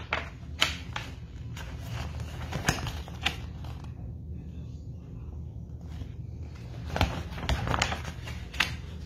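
Picture book being handled and its pages turned close to the microphone: scattered rustles, taps and knocks, a cluster of them near the end, over a steady low hum.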